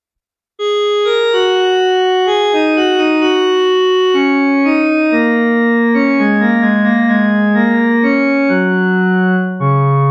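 Roland System-8 synthesizer playing a Jupiter-8 preset: a bright, piano-like keyboard patch sounding a line of overlapping notes that step downward in pitch. It starts suddenly about half a second in, and near the end the sound briefly dips before a lower note comes in.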